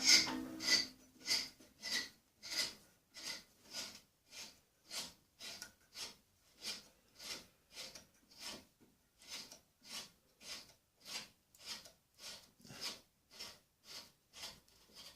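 Steel hand tap cutting an M8x1.25 thread into cast iron, turned stroke by stroke: even scraping strokes about one and a half a second, louder at first and softer after the first few seconds.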